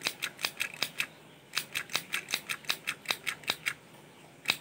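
Handheld stapler-type mini sewing machine squeezed quickly over and over as it stitches felt, each squeeze a sharp click, about five or six a second. The clicking pauses briefly about a second in, runs again for about two seconds, then a single last click near the end.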